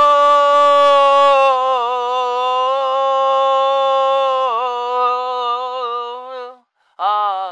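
A single long sung note, held on one pitch that slips slightly lower after a second or two, with a small wobble about four and a half seconds in, then fading out; a short second note starts just before the end and breaks off.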